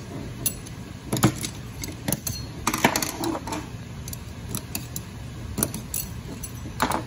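A small screwdriver picking and prying inside a steel automatic-transmission clutch drum, making irregular metallic clicks and clinks, with the sharpest knocks about a second in and around three seconds in.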